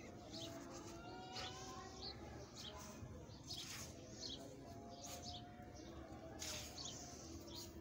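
Dry sand crumbling out of a hand and pouring onto a sandy floor: a soft hiss of falling grains, fuller about three and a half seconds in and again near six and a half. Birds chirp faintly in the background.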